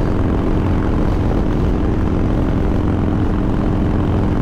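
Harley-Davidson Breakout's V-twin engine running steadily at cruising speed, heard from the rider's seat, with a constant rush of wind and road noise over it.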